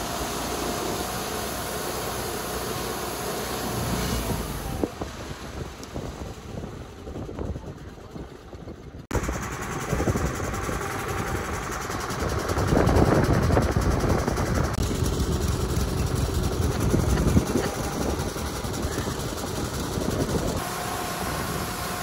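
Wood-Mizer LT40 portable band sawmill running on a large pine log: the steady engine hum, then a louder, rougher stretch of the band blade cutting through the wood. The sound changes abruptly about nine seconds in.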